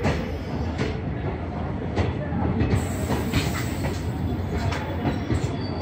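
Indian Railways passenger coaches rolling past along the platform: a steady rumble with sharp clicks as the wheels cross the rail joints every half second or so. A faint high squeal from the wheels comes in about three seconds in.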